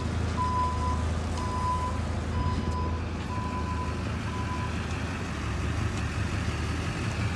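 Propane forklift's warning beeper sounding about once a second over the low running of its engine; the beeping stops about four and a half seconds in.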